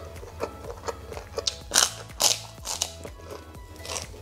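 Close crunching as a crisp white cracker is bitten and chewed, with several loud crunches from about a second and a half in, over soft background music.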